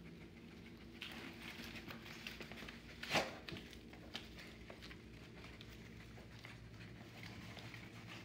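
A beagle moving and searching around a plant stand: faint, scattered light pattering and rustling, with one sharper knock about three seconds in.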